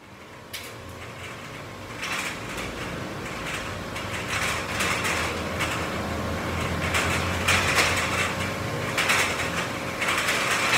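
Metal pull-up bar and its frame rattling and creaking under a man's pull-up reps, in repeated surges every couple of seconds that grow louder over the stretch.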